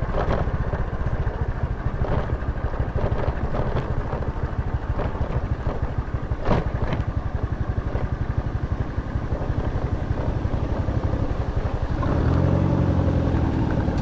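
Small motor scooter engine running at low speed over a rough dirt track, with a sharp knock about halfway through. Near the end the engine note turns steadier as the scooter slows almost to idle.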